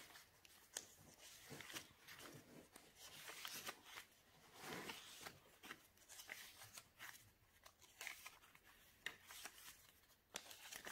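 Faint rustling and soft flaps of paper pages being turned and handled in a handmade junk journal, with scattered small clicks and one longer rustle about halfway through.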